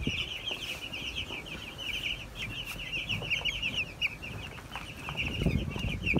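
A crowded flock of 11-day-old broiler chicks peeping constantly, many short high chirps overlapping in a steady chorus. Some low bumping and rustling comes in near the end.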